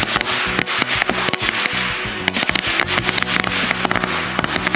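A string of firecrackers going off in rapid, irregular cracks, over background music.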